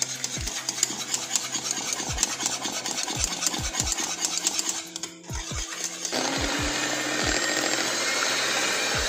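Wire whisk clattering rapidly against an aluminium saucepan as a cream mixture is beaten by hand. About six seconds in, an electric hand mixer starts, its motor whirring steadily after a slight rise in pitch as it comes up to speed, whipping the cream to thicken it.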